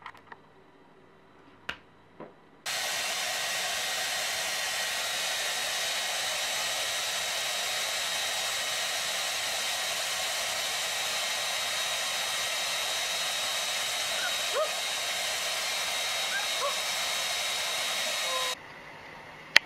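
Handheld hair dryer blowing steadily, a rush of air with a faint steady whine in it, switching on about two and a half seconds in and cutting off abruptly shortly before the end.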